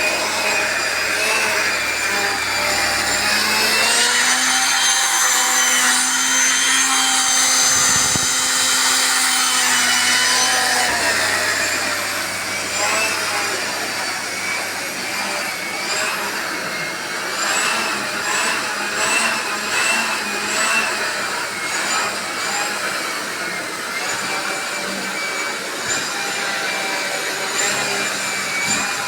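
Artel 2000 W canister vacuum cleaner running with a steady motor whine. Its pitch rises about four seconds in and settles back down around twelve seconds. Later come a series of short clicks and rattles.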